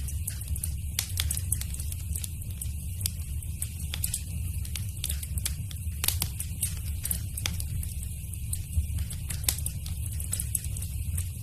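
Wood fire in a fireplace crackling, with irregular sharp pops and snaps, a few louder than the rest, over a steady low rumble of the flames.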